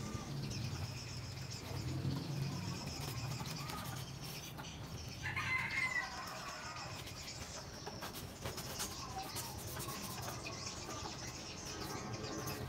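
Chickens calling in the yard, with one louder call about five seconds in, over a low background hum.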